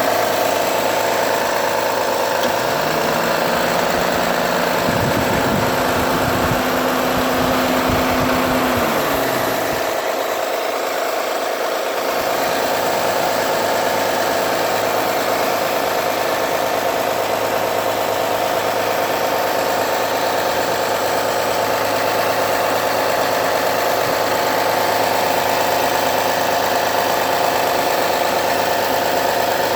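2009 Honda Accord V6 engine idling after a cold start, with a repetitive knocking or ticking noise. The noise only happens when the engine is cold and fades after a few minutes; the owner suspects a pulley or the belt tensioner.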